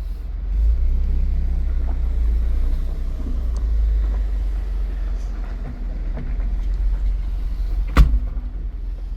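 A car being driven: a steady low rumble of engine and road noise, with one sharp knock about eight seconds in.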